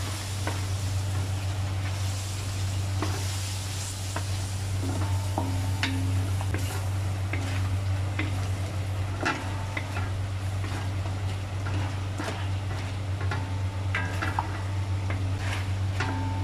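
Chicken and tomato paste sizzling in a stainless steel pan while a wooden spatula stirs, scraping and tapping against the pan many times, over a steady low hum.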